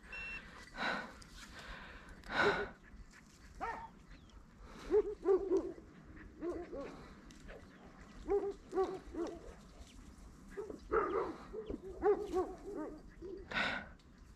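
Hunting dogs barking in clusters of short, repeated yelps, fainter than the hunter's voice. A few brief noises come between the bursts.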